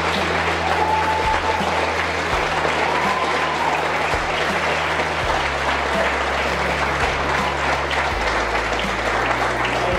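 Wedding guests applauding steadily, with a couple of whoops about one and three seconds in. Music with a slow, steady bass line plays underneath.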